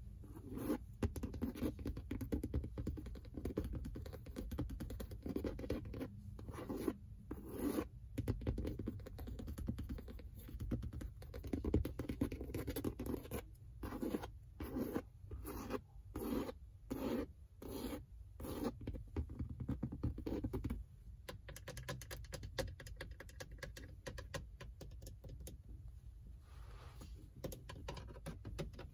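Long acrylic fingernails scratching the grained black leather of a Ford Mustang's seat bolster in repeated strokes, about one a second for a stretch in the middle. The scratching becomes softer about two-thirds of the way through.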